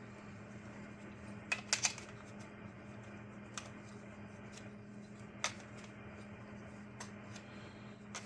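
Sharp clicks and taps of hot air rework station parts being handled and tried in place: a quick cluster about one and a half seconds in, then single clicks a few seconds apart, over a steady low hum.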